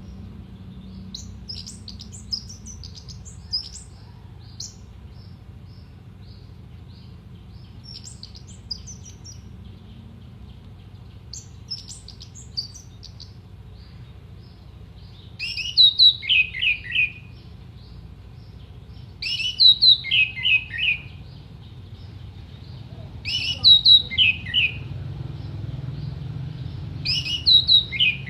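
Orange-headed thrush singing. It gives short bursts of quick, high twittering notes in the first half, then four loud phrases about four seconds apart, each a quick run of notes stepping down in pitch.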